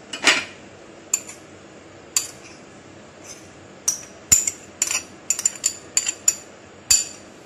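A spoon clinking and scraping against a small ceramic bowl as cheddar cheese slices and cream are scraped out of it. The sharp clinks come a few at a time at first and quicker in the second half.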